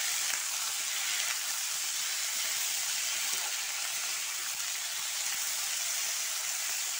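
Diced potatoes sizzling steadily in hot oil in a kadhai while a spatula stirs them.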